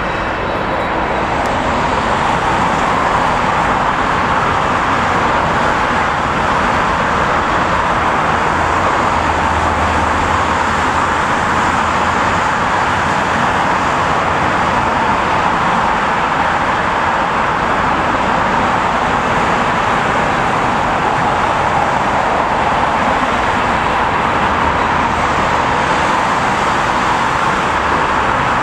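Twin-engine jet airliner taking off, its engines at takeoff thrust giving a loud, steady rushing noise as it climbs away.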